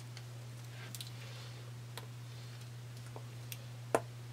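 A pen being handled and set to the writing surface: a few sparse, light clicks and taps, the loudest about four seconds in, over a steady low hum.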